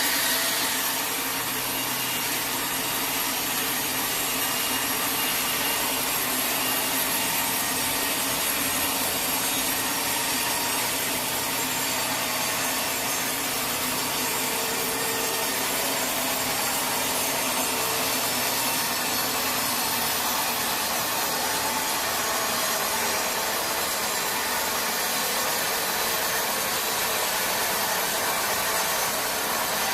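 Sawmill saw blade cutting steadily through teak wood, a continuous even rasping noise.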